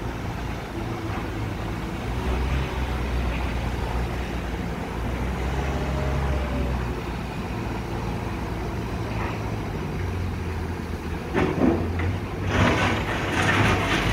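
Small articulated wheel loader's diesel engine running as it manoeuvres, its hum rising and falling with the throttle. Near the end a louder rough, rattling noise joins it.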